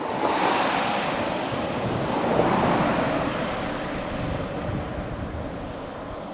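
AN8800-series light diesel railcar (Niigata Tekko NDC type) pulling away, its engine and wheels making a rushing noise that swells just after the start, peaks about two and a half seconds in, then slowly fades as the car moves off.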